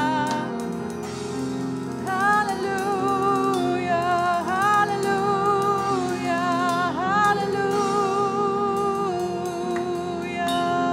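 A woman singing a slow worship melody in held notes with vibrato, over sustained keyboard chords.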